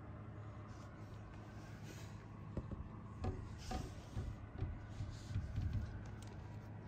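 Faint steady low hum, with a scatter of soft taps, knocks and rubbing sounds from about two and a half seconds in until about six seconds.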